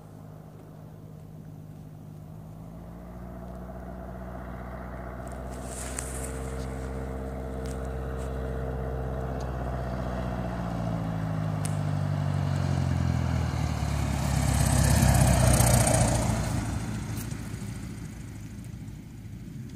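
Cessna 172's piston engine and propeller droning at low landing-approach power, growing steadily louder as the plane comes in. It passes close by about three quarters of the way through, loudest then and dropping in pitch, and fades as it rolls out on the grass strip.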